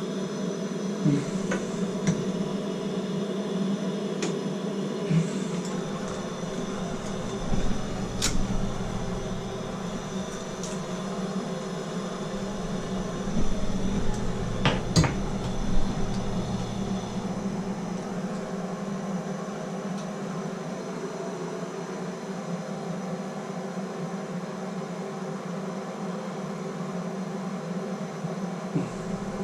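Plumbing torch flame burning steadily as it heats a copper fitting for soldering, with a few scattered sharp clicks and taps.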